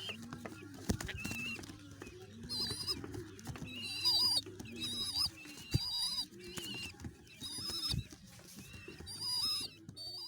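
Baby pigeon (squab) giving repeated high, squeaky begging calls, about one a second, while being hand fed, with a few short knocks in between.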